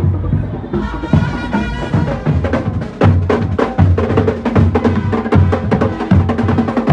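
A street marching band playing for a procession, with a bass drum striking a steady beat about every three-quarters of a second and sustained instrument tones over it.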